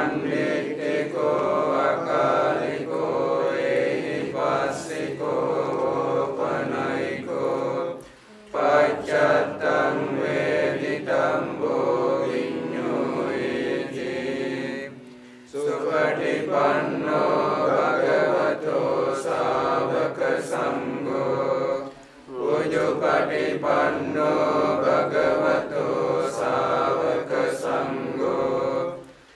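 Sri Lankan Theravada Buddhist monks chanting Pali paritta blessings together in a steady drone. They chant in long phrases of about seven seconds, with a short pause for breath between each.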